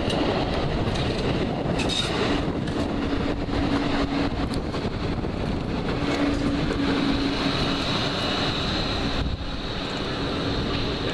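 A train running through a railway station: a steady rumble with a humming tone that comes and goes, dropping a little about nine seconds in.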